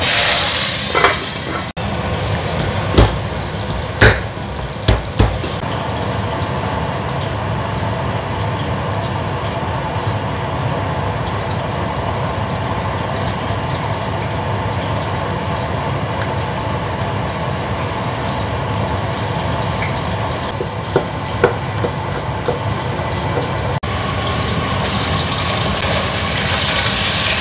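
Kitchen range-hood extractor fan running steadily. Over it, a loud burst of sizzling in the first second or so as garlic and chillies go into hot oil in a wok, a few sharp knocks a few seconds in, and the sizzling building again near the end as the wok is stirred with a metal spatula.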